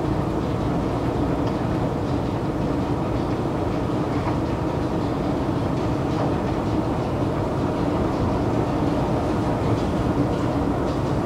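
Long metro escalator running while being ridden: its machinery gives a steady rumble with a constant hum and a few faint ticks.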